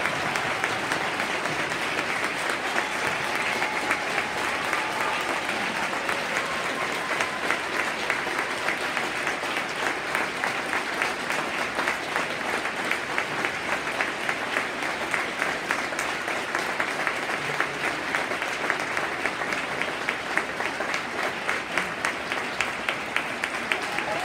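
Large arena audience applauding: dense, steady clapping from many hands.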